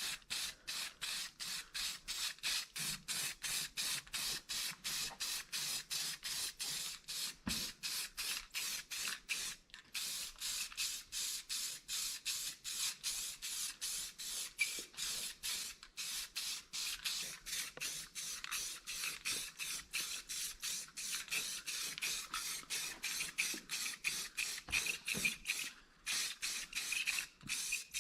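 Aerosol can of lens tint spraying onto tail-light lenses: a hiss pulsing rapidly and evenly, about three times a second.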